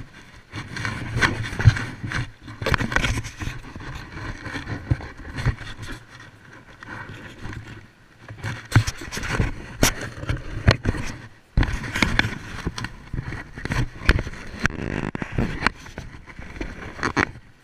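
Handling noise on a GoPro camera: fingers rubbing, scraping and knocking on the housing right at the microphone, making many irregular sharp clicks and scrapes.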